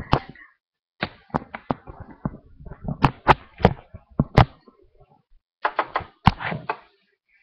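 Handling noise on a headset microphone: a marker pen knocking and rubbing against it, making an irregular run of sharp clicks and knocks. The loudest knocks come about three to four and a half seconds in and once more near six seconds.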